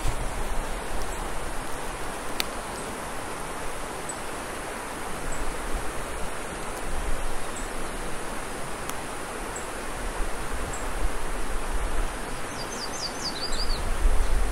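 Mountain stream rushing down a steep rocky cascade: a steady, even rush of white water. A short run of quick, high bird chirps near the end.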